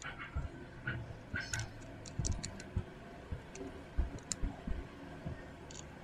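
Small grey plastic parts of a snap-together tank model being handled and pressed into the hull frame: irregular sharp plastic clicks and light taps, a few close together around the middle.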